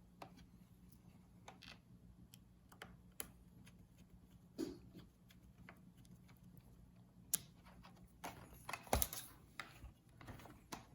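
Scattered small clicks and taps of hands and tools handling a laptop's plastic case, with a busier run of clicks about eight to ten seconds in.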